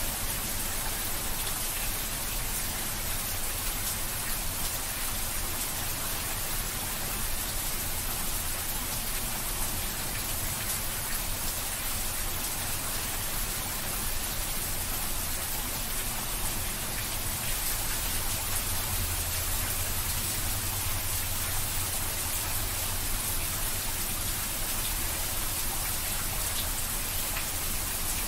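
Steady, heavy rain: an even hiss of countless drops with no breaks.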